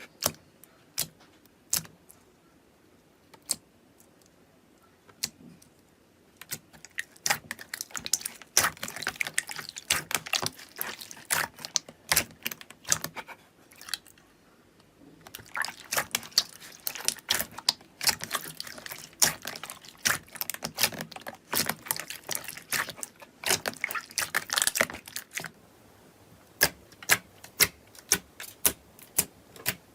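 Slime being pressed and squeezed by hand, giving sharp clicking pops. A few spaced clicks at first, then dense crackling for most of the middle with a brief pause, and a few spaced clicks again near the end.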